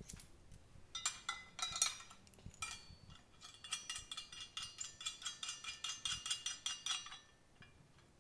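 Small steel rigging hardware, a quick link and a lifting hook, clinking together in the hands as the hook is attached. Light metallic clinks start about a second in and turn into a quick run of clinks and rattles that stops near the end.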